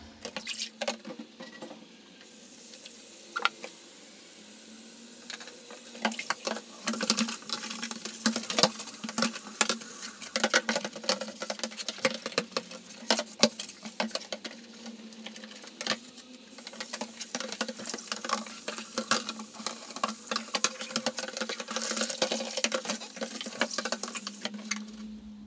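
A bathroom washbasin being scrubbed and rinsed by hand: a cloth rubbing on the ceramic, water splashing and plastic parts knocking, with many quick clicks and rustles over a steady low hum.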